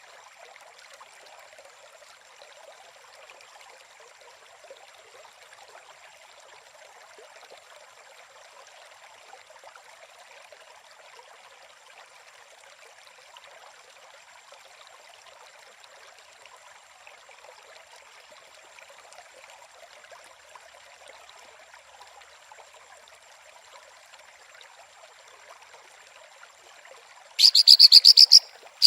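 Faint, steady nature ambience: a soft hiss like a trickling stream, with a thin, steady high tone over it. About a second and a half before the end, a loud, rapid, high-pitched trill cuts in abruptly.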